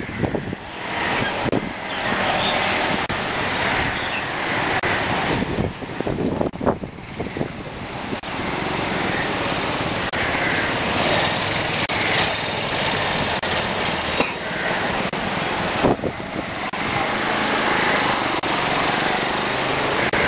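Street traffic noise on a rain-flooded road: cars running and tyres on the wet, water-covered surface, with a few knocks.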